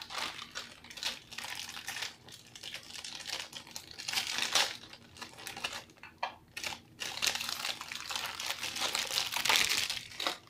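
Plastic wrapper of a small Oreo cookie packet crinkling in irregular rustles as it is handled and the cookies are taken out onto a plate. The loudest rustles come about four and a half seconds in and again near the end.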